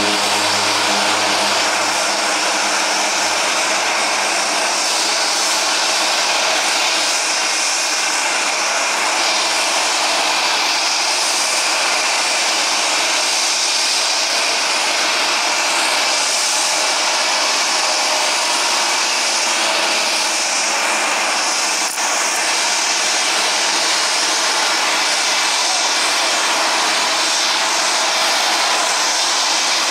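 Twin-engine turboprop plane at takeoff power, a loud, steady engine roar and whine. Its low propeller hum fades within the first few seconds as it accelerates away. There is a brief break about two-thirds of the way through, after which turboprop engine noise carries on.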